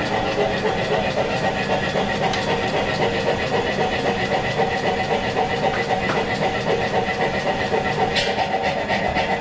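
A machine running steadily with a hum and a fast, regular pulse, with a brief sharper sound about eight seconds in.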